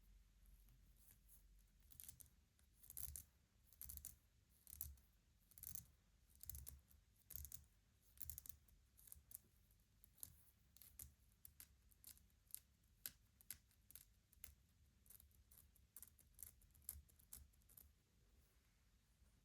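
Light clicks and taps on the wooden pieces of a Shut the Box game, an uneven run of about one to two a second. After about ten seconds the clicks come closer together and lighter.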